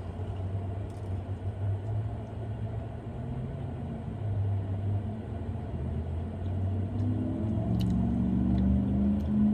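Low, steady rumble like a car engine running, with a pitched hum coming in and growing louder over the last few seconds.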